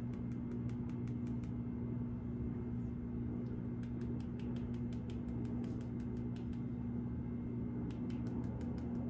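Light, scattered clicks and ticks of hands moving close to the microphone, over a steady low hum.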